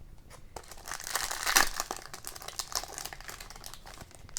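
Crinkly foil wrapper of a hockey card pack being torn open and crumpled, with a run of sharp crackles that is loudest about a second and a half in.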